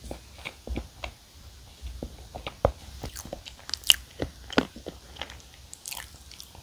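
Chewing of frozen Choco Pie snack cakes: irregular wet mouth clicks and soft crunches, with a few sharper ones around the middle.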